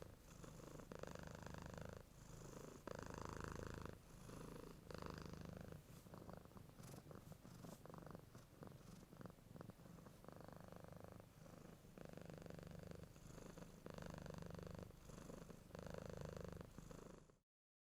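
Domestic cat purring in a steady rhythm of swells about a second long, cutting off abruptly near the end.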